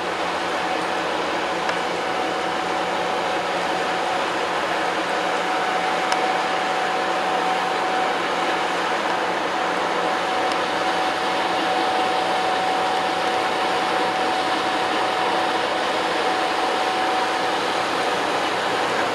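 Waterjet-propelled coast guard patrol vessel running at speed: a steady rushing noise with a steady whine that builds a few seconds in and fades near the end.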